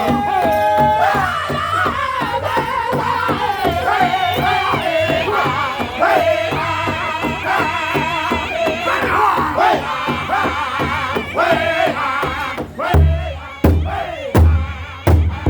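Powwow drum group singing a chicken dance song: high, wavering voices over a steady beat on a shared bass drum. About thirteen seconds in, the singing drops away and the drum carries on with loud, separate strikes.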